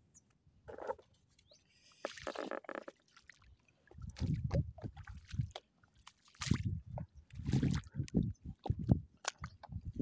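Footsteps wading through shallow water over a sandy, muddy tidal flat: irregular sloshing and squelching steps.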